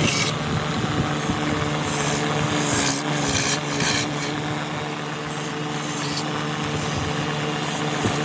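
Electric motor of a woodworking machine running steadily, with short stretches of hissing as the wood is worked.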